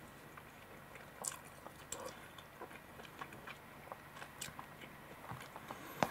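Eating sounds: quiet chewing, with scattered small clicks and scrapes of a metal spoon scooping rice from a plastic takeaway curry tray.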